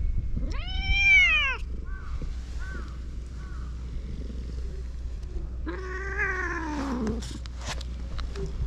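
Domestic cats meowing: a loud meow about half a second in that rises and then falls in pitch, a few faint short chirps, then a longer meow from about the middle that drops in pitch at its end. A steady low rumble runs underneath.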